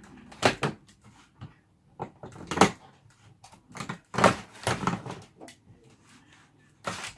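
A new window unit being pushed and shifted into its wall opening: irregular knocks and clunks of the frame against the wall, the loudest about half a second, two and a half and four seconds in, with a last clunk near the end.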